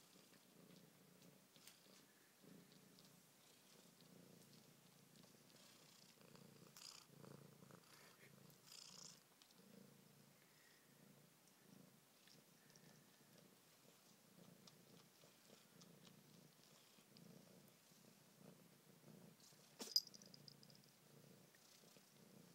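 A tortoiseshell-and-white cat purring softly in a steady, rhythmic pulse. About twenty seconds in, the small bell on its collar gives one brief jingle.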